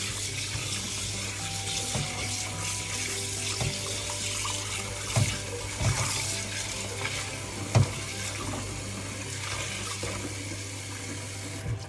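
Kitchen tap running steadily as cut-up raw chicken is rinsed a second time in plain water, with a few knocks along the way, the loudest about eight seconds in. The water stops right at the end.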